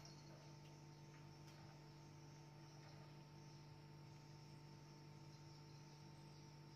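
Near silence: room tone with a steady electrical hum.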